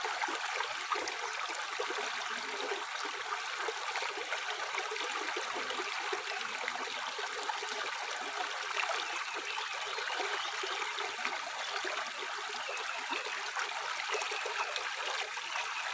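Tap water running steadily into a sink, an even splashing rush without pause.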